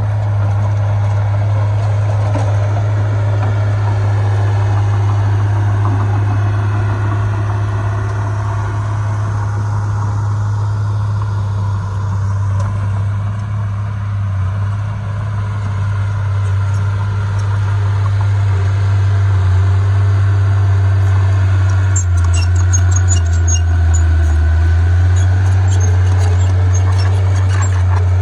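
Heavy diesel earthmoving machinery running steadily with a deep, loud drone. A run of sharp metallic clicks and clanks joins it a few seconds before the end.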